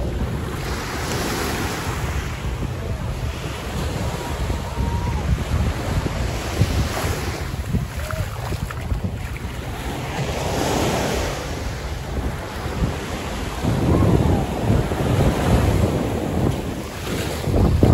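Wind buffeting a phone's microphone over the wash of gentle surf on a sandy beach, the gusts rumbling louder in the last few seconds.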